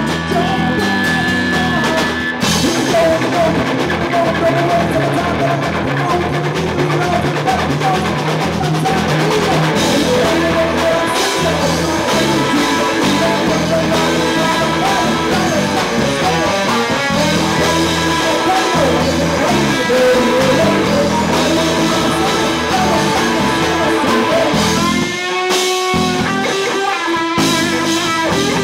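Live rock band playing: electric guitars, a drum kit and a singer. About 25 seconds in, the low end and drums drop out for a few seconds, leaving the guitar.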